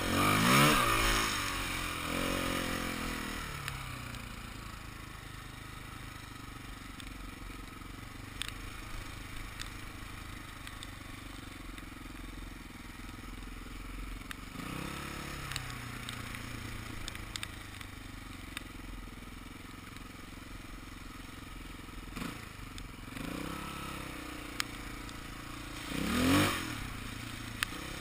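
Dirt bike engine being ridden on a trail: a burst of throttle near the start, a long stretch of quieter off-throttle running, short revs midway and later, and a loud rising rev near the end. Scattered light clicks sound over it.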